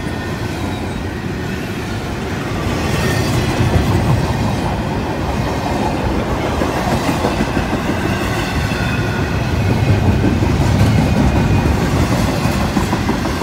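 Intermodal freight cars rolling past close by: a steady rumble and clatter of steel wheels on the rails, with faint thin high ringing tones over it. It swells louder twice.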